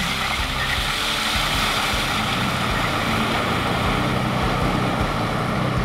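Toyota Tacoma pickup driving through a muddy puddle: steady splashing and sloshing of water around its tyres over the running engine.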